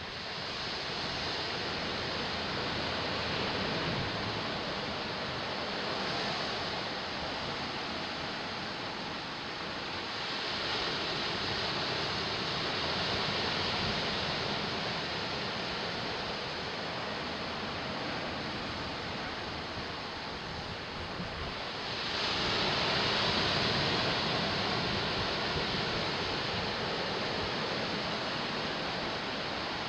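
Ocean waves and surf washing in a steady rush, swelling louder about a third of the way in and again past the two-thirds mark.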